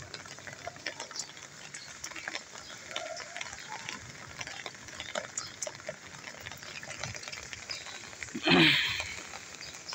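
Heavy rain pattering on a wet concrete rooftop, a steady hiss dotted with small drips and splashes. A brief louder sound about eight and a half seconds in.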